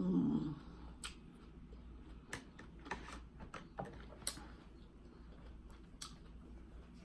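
A short 'mm' hum, then cantaloupe being chewed: faint scattered mouth clicks, about eight over the next six seconds.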